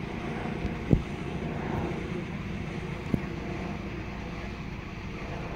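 Wind buffeting the microphone: a steady low rumble, broken by two short thumps, about a second in and about three seconds in.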